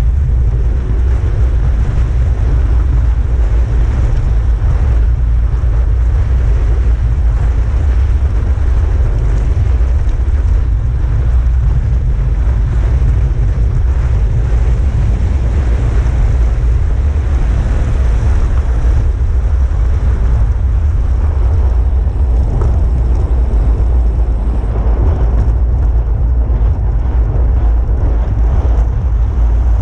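Steady, loud wind roar buffeting an action camera's microphone on a road bike descending at about 50 to 65 km/h, mostly a deep rumble with a fainter rushing hiss above it.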